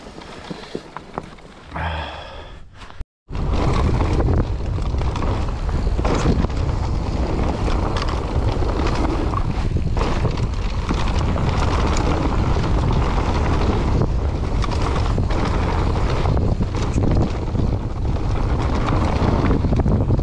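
Wind buffeting the microphone of a mountain bike riding fast down a dirt trail, with the rush of tyres and frequent short knocks and rattles from the bike over bumps. The sound cuts out for a moment about three seconds in, then turns loud and stays so.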